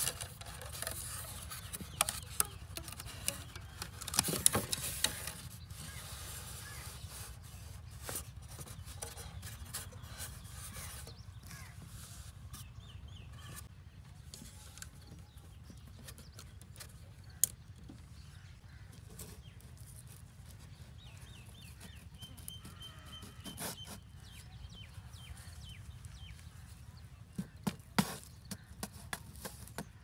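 Hands working on a homemade trap of plastic board, cardboard, bottles and string: scattered light clicks and rustles, with a louder rustle about four seconds in. Near the end come a few sharp hammer knocks.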